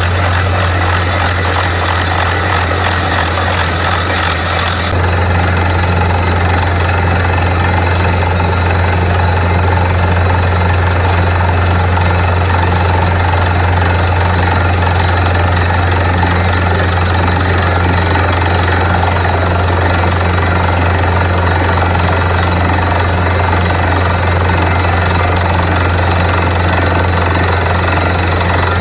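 Borewell drilling rig running steadily with a loud, constant low hum, its sound shifting slightly about five seconds in.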